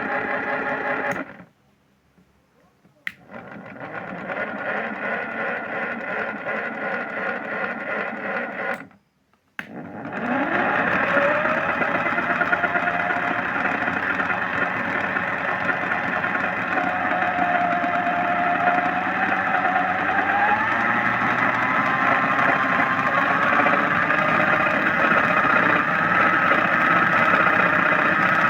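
Simba washing machine running a wash: its motor hums steadily, stops twice for a second or so, then starts again with a rising whine about ten seconds in and runs on steadily.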